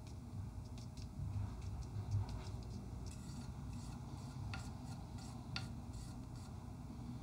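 Paintbrush scratching and dabbing paint on a plastic mixing palette, with soft ticks and two sharper taps of the brush against the palette a second apart.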